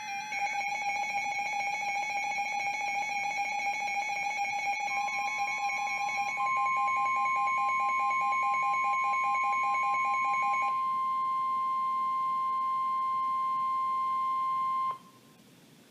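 Weather radio receivers sounding an emergency alert: rapidly pulsing alarm beeps layered with steady electronic tones. About five seconds in, the weather radio's steady single-pitch warning alarm tone joins them. The pulsing stops about eleven seconds in, and the remaining tones cut off suddenly near fifteen seconds.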